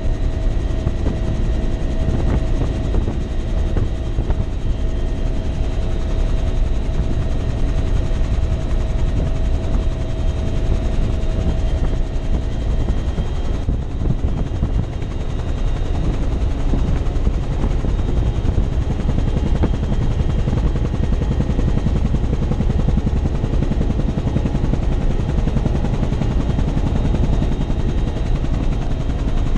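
Military transport helicopter in flight, heard from inside the cabin with the side door open: a loud, steady rotor chop with engine and wind-rush noise. A thin steady whine runs along with it and fades out about halfway through.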